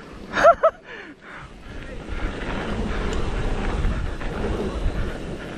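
Wind rushing over the microphone and knobby tyres rolling over the dirt trail as a mountain bike descends, a rumbling noise that builds after the first second and then holds steady. Two short high yelps come about half a second in.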